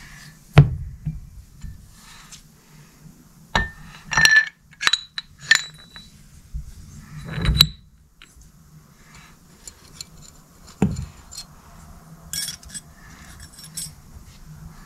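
Steel transfer-case parts, a splined shaft and a toothed gear hub, being handled and fitted together on a workbench: a series of metallic clinks and knocks, several with a short ring, the loudest about half a second in. A low steady hum sits behind them.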